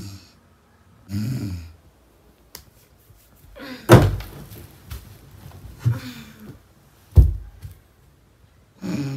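A woman snoring twice, then loud thumps with rustling as she turns over on a sofa under a blanket, about 4 and 7 seconds in, and another snore near the end.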